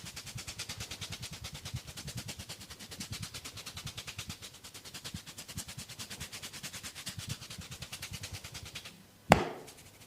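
Rapid, even patter of hands striking the body in a percussive chopping massage, about eight strokes a second, stopping shortly before the end. A moment later comes a single loud, sharp smack.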